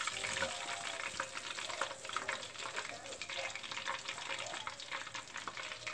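Breadcrumb-coated ocean perch fillets frying in hot oil in a cast-iron pot: a steady, dense crackle of popping, sizzling oil.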